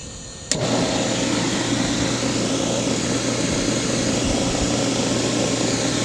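Portable refrigerant recovery machine switched on about half a second in with a click, then running steadily with a low hum as its compressor starts pulling R-22 out of the air conditioning system into the recovery tank.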